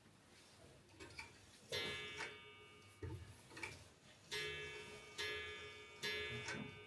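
Mechanical clocks ticking, with a few ringing notes starting about two seconds in, each struck and left to fade.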